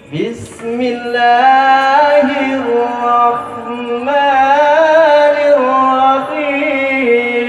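A single voice chanting Quranic recitation in long, melismatic held notes that waver and ornament in pitch. It is amplified through a sound system.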